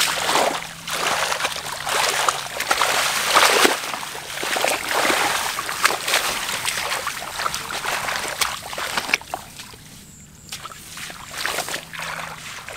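Shallow water splashing and sloshing in uneven surges, with trickling between, as it is stirred by hand through flooded grass; it quietens briefly about ten seconds in.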